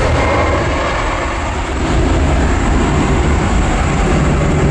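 Twin turbofan engines of a Citilink Airbus A320 airliner at takeoff thrust as it climbs away: a loud, steady, deep jet noise.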